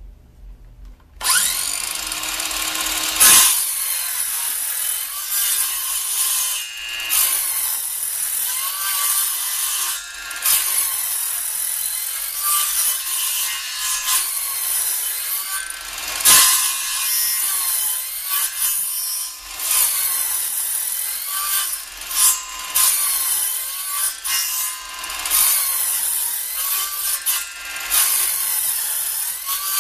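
Bosch 18-volt cordless circular saw cutting a series of shallow kerfs across a 2x4 leg to clear out a notch. The blade starts about a second in and saws in repeated passes, with short dips between them.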